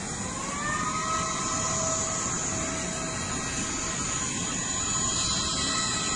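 Jet aircraft turbine whining over a steady rumble, its pitch rising in the first second and then holding steady.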